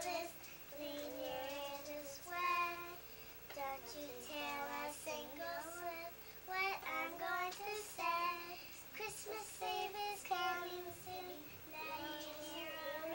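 Young children singing a song together, with held, sung notes.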